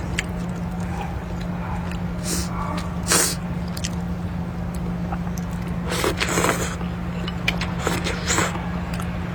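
A person eating noodles: a few short noisy slurps, the longest about six seconds in, over a steady low hum.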